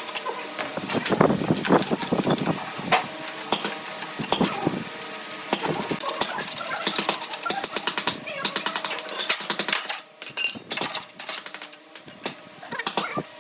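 Workshop tool noise: a dense, irregular run of knocks and rapid clicks, with quieter gaps near the end.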